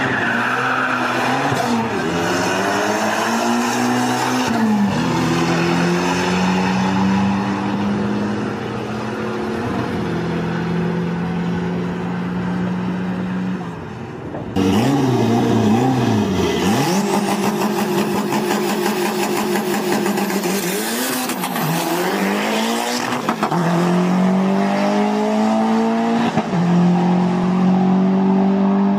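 Mitsubishi 4G63 four-cylinder engine pulling hard down a drag strip, its pitch climbing and dropping at each gear change. After a cut about halfway, another car's engine does the same through its gears.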